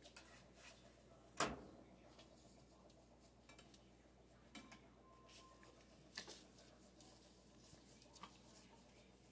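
Near silence in a small room, broken by a few faint clicks and small knocks of puppies moving about; one sharper knock comes about one and a half seconds in.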